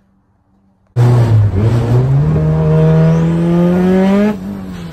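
Turbocharged Honda B18 engine in a Civic EG coupe, heard from inside the cabin, pulling hard under acceleration from about a second in, its revs climbing steadily. About four seconds in the revs drop and fall away as the driver shifts up. The clip was filmed while a loose wastegate collar was causing boost spikes.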